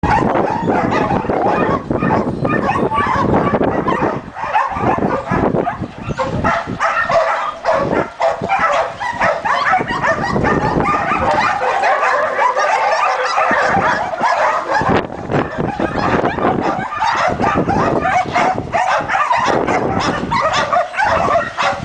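Many kennelled dogs barking over one another in a dense, continuous chorus.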